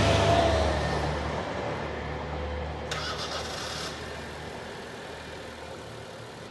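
JR Shikoku 2700 series diesel train running away after passing, its engine hum and rumble fading steadily. A short high-pitched rattle comes about three seconds in.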